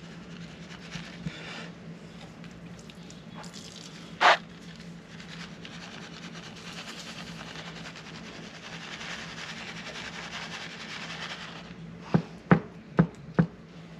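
Kitchen handling sounds as shaved Parmesan is spread over a fish fillet: soft rubbing and rustling over a steady low hum. There is one brief louder clack about four seconds in, and four sharp taps near the end.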